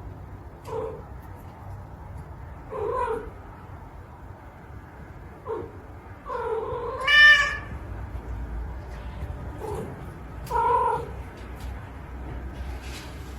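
A cat meowing repeatedly, about six separate calls, the longest and loudest one about seven seconds in.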